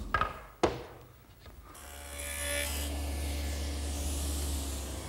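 Table saw fitted with a dado head, starting up about two seconds in and running steadily while cutting the 1/4-inch grooves for the drawer's plywood bottom in a drawer side. A sharp knock comes just before the saw starts.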